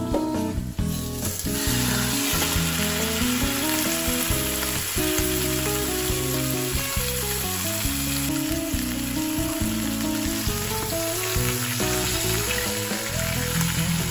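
Whole raw chicken frying breast-down in hot oil with minced garlic and ginger. A steady sizzle sets in about a second in, as the bird goes into the pot.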